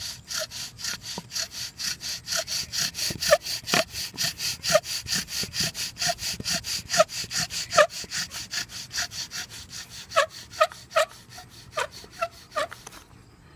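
Bow drill in use: a wooden spindle spun back and forth by a bow in the notch of a wooden hearth board, a fast, even rasping with several strokes a second and short squeaks now and then, stopping just before the end. The friction is grinding off dark, smoking char powder to form an ember.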